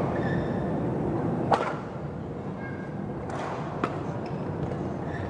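Badminton rackets striking the shuttlecock during a rally: a loud crack about a second and a half in and another sharp hit near four seconds, over a steady hall background.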